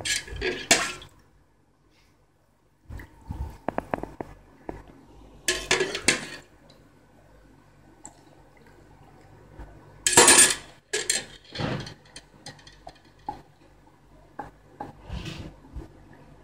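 Wooden pestle grinding and knocking in a mortar, working a wet almond-and-spice paste, with irregular scrapes and knocks. Twice water is ladled in with a metal ladle, about five and ten seconds in, splashing and clinking against the bowl.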